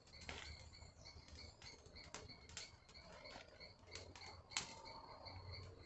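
Faint, irregular crackling of a burning banana-leaf straw torch, with a faint high chirping repeating steadily in the background.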